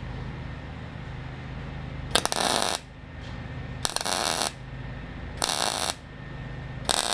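A steady low machine hum, broken four times by short bursts of harsh, hissing noise at about a second and a half apart, as from a power tool working metal.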